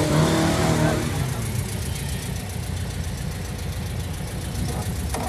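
Air-cooled VW Beetle flat-four engine heard from inside the car, revving briefly in the first second and then settling to a steady low running as the car creeps along. A short click comes near the end.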